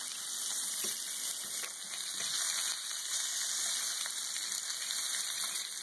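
Bacon strips sizzling in their rendered grease on a griddle: a steady hiss with a few faint pops.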